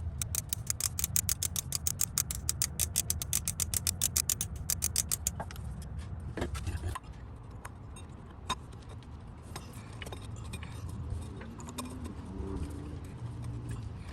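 Ratchet wrench clicking rapidly and evenly for about five seconds, then a few scattered metallic clicks, over a low hum that drops away about seven seconds in.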